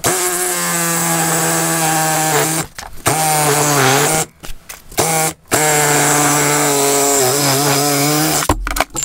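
Hitachi cordless reciprocating saw cutting through steel exhaust pipe held in a vise. The motor whines loudly in four runs separated by brief pauses, and its pitch sags as the blade bites into the pipe.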